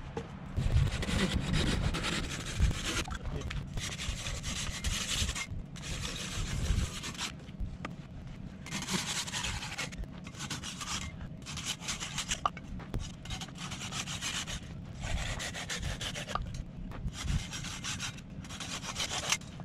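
Silky folding hand saw cutting through a firewood log: rasping back-and-forth strokes in runs of one to two seconds, broken by short pauses.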